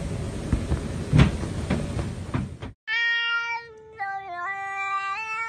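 A noisy hiss with a few soft knocks, then, after a sudden cut, a domestic cat yowling in two long, drawn-out meows held at a steady pitch, the second dipping briefly in the middle.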